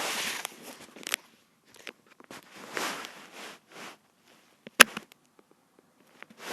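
Handling noise: irregular short bursts of scraping and rubbing on the recording device, with one sharp tap just before five seconds in.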